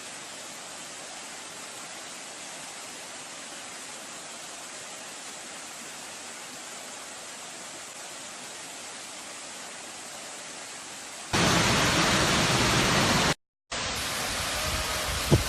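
Waterfall: water rushing in a steady hiss, jumping louder and brighter about eleven seconds in, with a brief dropout shortly after.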